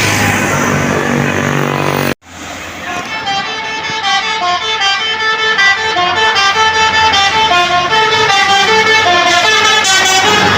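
Bus engine and road noise, then after an abrupt cut about two seconds in, a tour bus's basuri (telolet) multi-tone air horn plays a quick tune of short notes stepping up and down in pitch, swelling louder over the first couple of seconds.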